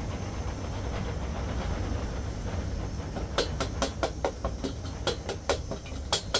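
A steady low rumble with a hiss, joined about three seconds in by a quick run of sharp knocks, about three or four a second.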